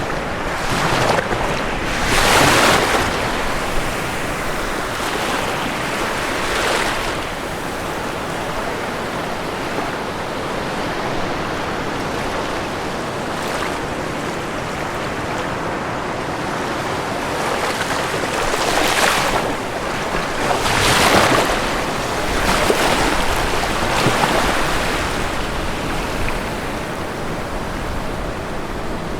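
Ocean waves washing onto a shore in a steady hiss of surf, with several louder breaking swells, two of them close together about two-thirds of the way through.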